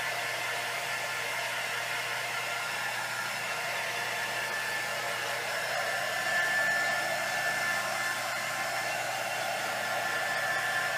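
Handheld electric hot-air blower running steadily, a constant fan rush with a faint high whine. It is being passed over freshly poured epoxy resin to pop surface bubbles.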